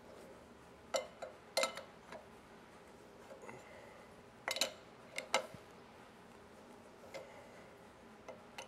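Short, sharp metallic clicks and clinks in small clusters, about five times with pauses between, from a ratchet and wrench working the nut of a harmonic balancer installer tool as the balancer is pressed onto a small block Chevy crankshaft.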